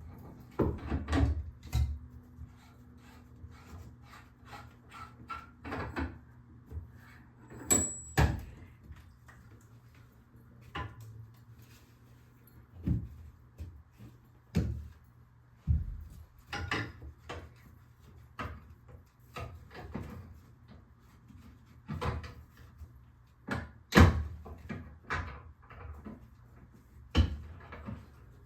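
Irregular knocks, clunks and clicks of hands and tools working in and around a bathroom vanity cabinet, with the loudest bangs about eight seconds in and again late on.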